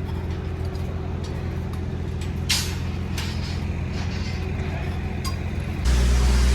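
A heavy diesel engine running steadily, with scattered metal clinks and knocks over it. Near the end the engine sound suddenly steps up louder.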